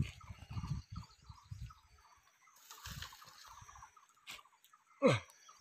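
Bare hands scraping and rummaging in loose soil and dry twigs at a burrow entrance, in a run of scuffs, a brief rustle and a click. About five seconds in comes a short, loud cry that falls steeply in pitch.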